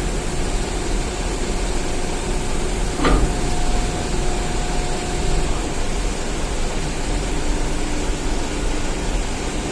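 Steady low engine rumble with a hiss of noise over it, broken by one sharp knock about three seconds in.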